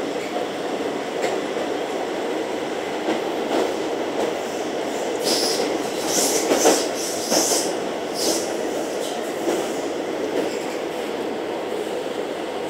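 Madrid Metro Line 9 train running through the tunnel, heard from inside the carriage as a steady rumble. About halfway through comes a run of short high-pitched squeals.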